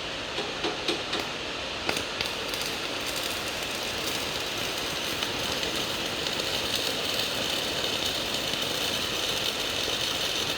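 TIG welding arc from a hitbox TIG200PACDC welder: a few crackling clicks as the arc starts, then a steady hiss that cuts off near the end as the arc is broken.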